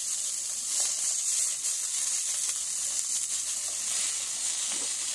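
Sausage sizzling as it fries directly on the hot steel top of a wood-burning stove, a steady high hiss.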